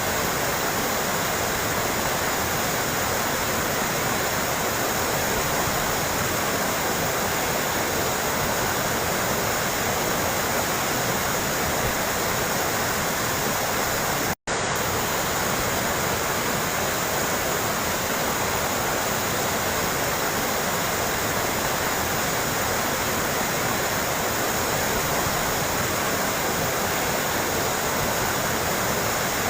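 Water trickling and splashing steadily, with an even rush and no birdsong, cut off for a split second about halfway through.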